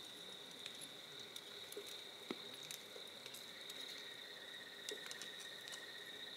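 Faint, steady trilling of crickets, with a second, lower-pitched trill joining about halfway through, and scattered small clicks and ticks.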